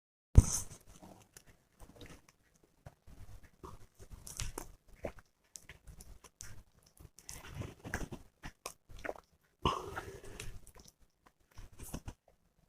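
Close-up mouth and swallowing sounds of someone drinking Thums Up cola from a bottle: scattered gulps and small wet clicks, with a sharp click about half a second in and a louder gulp near the end.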